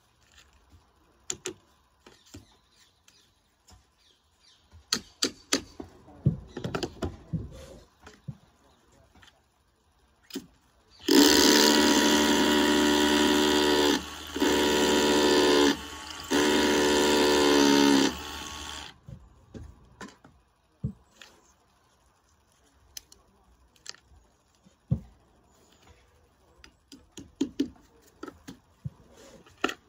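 Power drill running in three runs of a few seconds each, drilling holes for wall plugs, the motor's pitch sagging slightly as a run ends. Scattered clicks and knocks come before and after.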